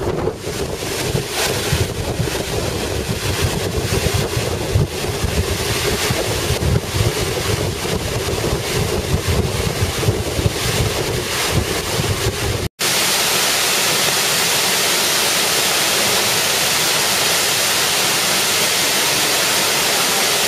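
Wind buffeting the microphone over the rush of a high waterfall. About two-thirds of the way in, after a sudden cut, a steady, even hiss of the waterfall's falling water filmed close up.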